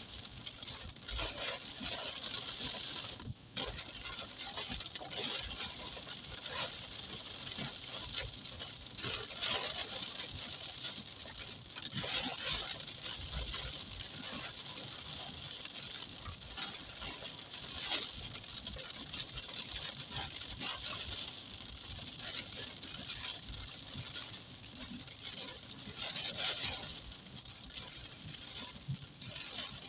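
Rain pattering on a car's windshield and roof during a thunderstorm, heard from inside the moving car's cabin. It swells louder several times.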